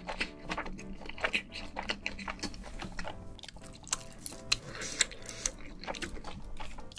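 Close-miked chewing of spicy fire noodles: a run of wet mouth clicks and small crunches, over quiet background music. About two-thirds of the way through comes a soft crisp rustle as a fried hash brown is picked up.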